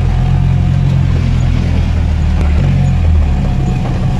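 UAZ 4x4's engine running at low speed, heard from inside the cab; its drone shifts in pitch about two and a half seconds in, then settles again.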